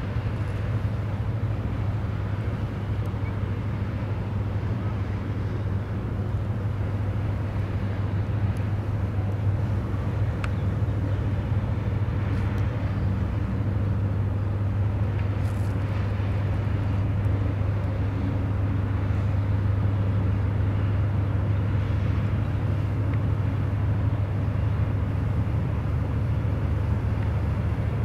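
Steady low engine drone of an inland container barge passing on the river, heard from the bank.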